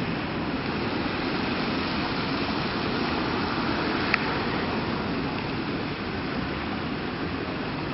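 Steady city street noise with a traffic hum under it, and a single sharp click about four seconds in.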